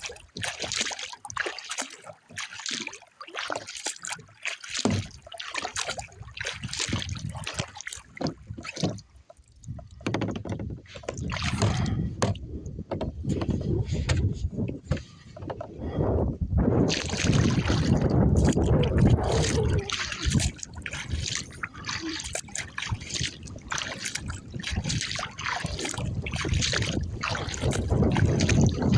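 Paddling a Riot Edge 13 kayak: repeated paddle strokes with water splashing and trickling off the blade and lapping at the hull. From about ten seconds in, a heavy low rumble of wind buffeting the microphone joins.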